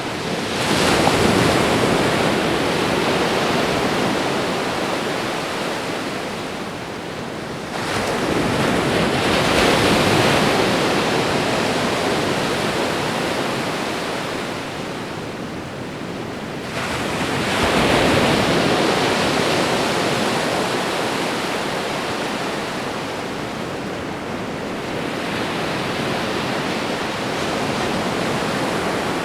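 Ocean waves breaking on the shore: a new wave surges in about every eight to nine seconds, four times, and each slowly washes out before the next.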